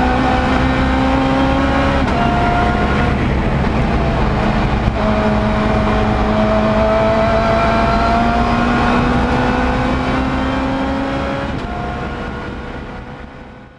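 Lotus Exige race car engine heard from inside the cockpit at full racing speed, its pitch climbing steadily under acceleration and dropping sharply at upshifts about two, five and eleven and a half seconds in, over tyre and road noise. The sound fades out over the last few seconds.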